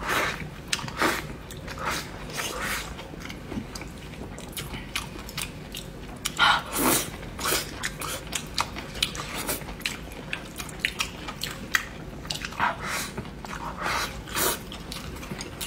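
A person eating rice with stir-fried green pepper and shredded pork from a plastic takeout box: chewing and mouthfuls taken off chopsticks, in irregular bursts.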